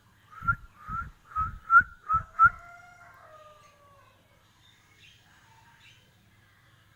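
A Bornean murai (shama) singing: six short rising whistled notes, about two a second, each with a low thump beneath it, then a longer falling whistle, and fainter notes after.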